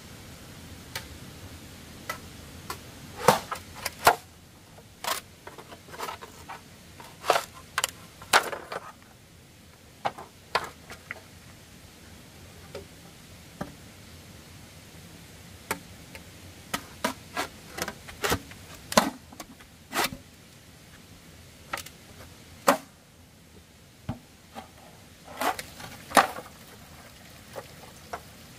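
Machete chopping at bamboo poles: irregular sharp cracks and knocks, sometimes in quick pairs or threes, with pauses of a few seconds between bouts.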